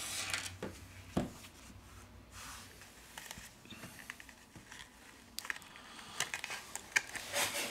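Faint handling noises from work on an opened smartphone on a bench: rustling and small taps, a single knock about a second in, and a run of quick clicks in the last two seconds.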